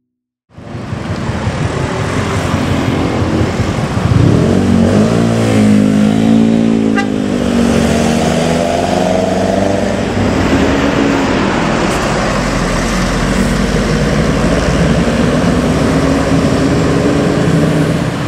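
A motor vehicle's engine running close by in street traffic, its pitch rising and falling as it revs, loudest from about four to ten seconds in.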